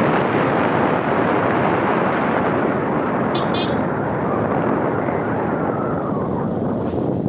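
Steady rushing wind and road noise from a moving vehicle. A brief high wavering chirp sounds about three and a half seconds in.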